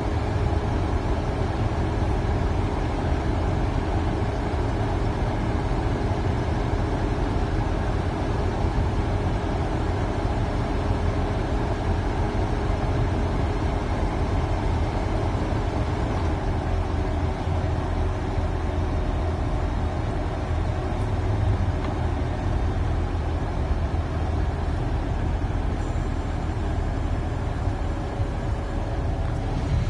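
Holden VY Commodore engine idling steadily at about 750 rpm, a continuous low hum.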